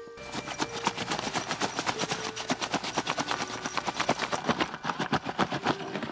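Fabric shoe bag shaken out hard, its cloth flapping in quick sharp snaps several times a second.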